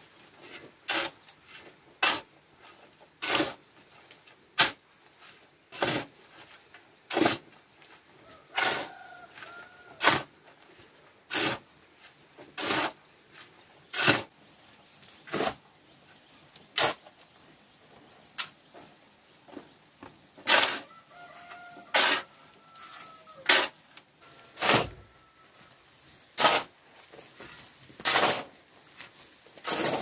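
Steady rhythm of short noisy strokes from a hand tool working concrete, about one every 1.3 seconds. A rooster crows faintly twice, about a third of the way in and again past two thirds.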